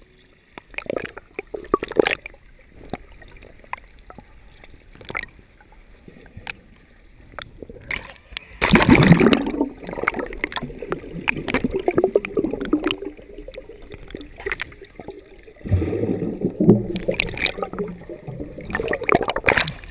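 Pool water heard from below the surface: muffled sloshing and gurgling from swimmers moving close by. Scattered knocks in the first several seconds, then louder rushes of churning water about eight seconds in and again near the end.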